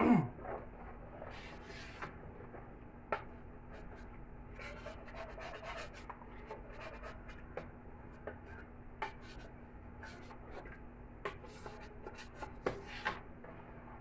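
A spoon scraping and rubbing around the bottom and sides of a large aluminium pot of thick rice porridge, in irregular strokes with the odd sharp knock against the metal, stirred constantly so the rice does not stick.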